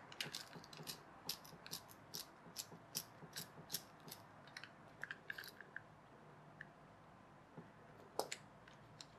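Small clicks and taps of plastic toy parts being handled as a toy gearbox casing is opened, about two or three a second at first, then a few scattered ones, with one louder click about eight seconds in.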